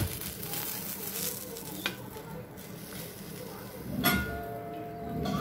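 Besan chilla sizzling in an oiled nonstick frying pan, with a sharp knock of a wooden spatula against the pan at the start and a lighter tap about two seconds in.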